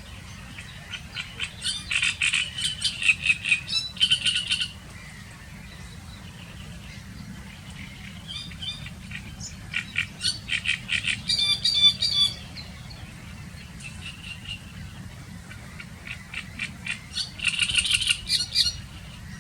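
Great reed warbler singing: three loud, harsh song phrases of repeated croaking and rattling notes, each lasting a few seconds, with pauses between them.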